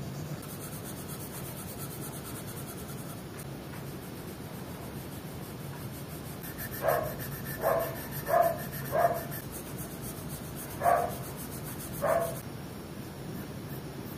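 A dog barking six short times, four in quick succession and then two more, louder than everything else. Behind it is a faint steady hiss and the scratch of pencil shading on paper.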